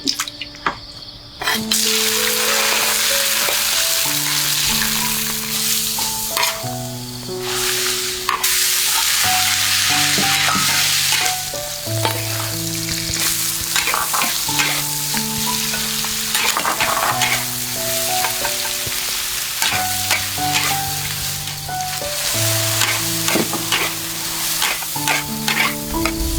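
Food frying in hot oil in a pan, a loud sizzle that starts suddenly about a second and a half in, with the clicks and scrapes of stirring. Background music with a simple melody plays underneath.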